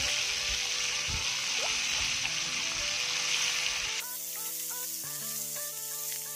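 Dried hilsa pieces sizzling as they fry in oil in a metal wok, with a few knocks and scrapes of a metal spatula against the pan. About four seconds in the sizzle drops away suddenly, leaving background music.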